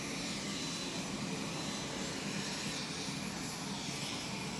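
Lockheed C-130 Hercules turbine engines running steadily: an even rushing hiss with a faint high whine over a low hum.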